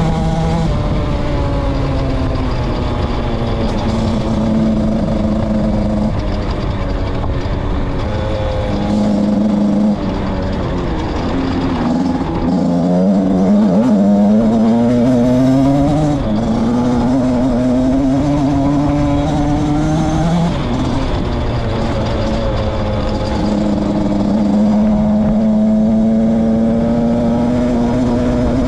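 Beta RR 50cc two-stroke enduro motorcycle engine running under way. Its pitch holds and then steps up and down several times, dipping and wavering about midway before climbing again.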